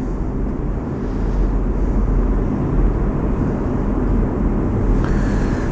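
Steady low rumbling background noise with no clear rhythm.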